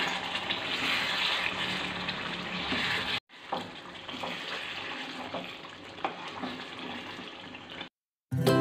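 Chicken curry simmering in a pan, a steady bubbling hiss. After about three seconds it grows quieter, with a spoon stirring through the curry and a few light knocks against the pan. Near the end the sound cuts out and chiming music begins.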